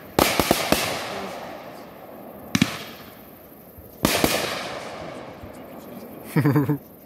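Aerial firework shells bursting: a rapid cluster of sharp bangs at the start, then single bangs about two and a half and four seconds in, each fading out.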